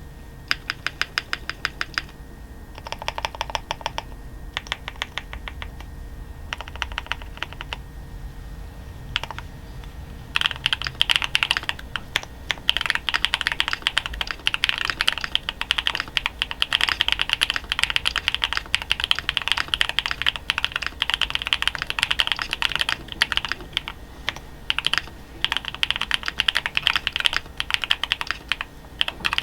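QWERTY Keys QK65 mechanical keyboard with lubed and filmed Prevail Epsilon switches on a polycarbonate plate, with GMK Terra keycaps, being typed on. It starts with several short runs of rapid, evenly spaced key presses and a few single clicks. About ten seconds in it turns to fast, continuous typing.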